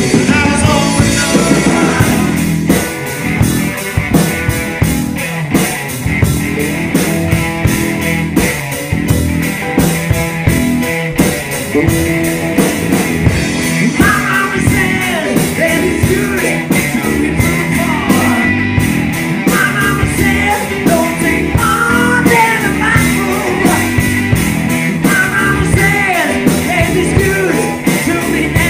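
Live rock band playing, with drums keeping a steady beat under electric guitars, bass guitar and Hammond organ, and a man singing into a microphone.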